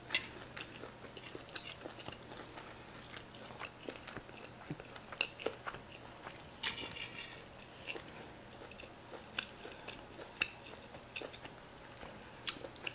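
Close-up chewing of tough skirt steak in a burrito: soft, irregular wet mouth clicks and smacks, faint against the room.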